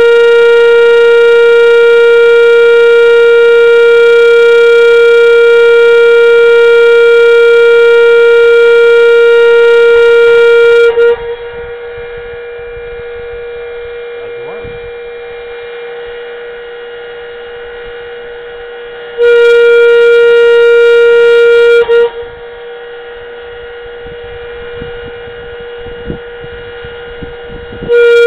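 Federal FedelCode coding siren sounding a loud, steady tone. Its dampener cuts it to a faint hum for about eight seconds, lets it out for a three-second blast, then cuts it again for about six seconds before it sounds once more near the end. The silent gaps are the code being struck by the #3 code wheel.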